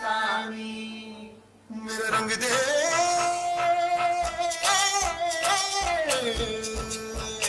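Music with a voice singing over a steady beat. It drops away briefly near the start, then comes back with one long held note that rises and later falls.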